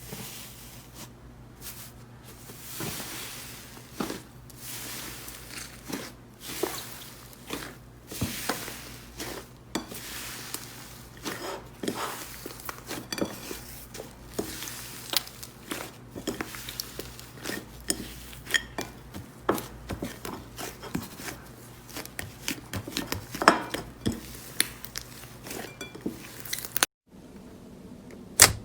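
Slime being squeezed, poked and stretched by hand, making a run of irregular wet clicks and pops. A short break near the end, then sharper, louder clicks.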